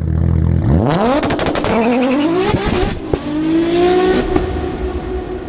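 Car engine revving hard: a low steady rumble, then the pitch sweeps sharply upward about a second in with a rapid string of sharp cracks, rises again, and settles into a steadier higher note that fades near the end.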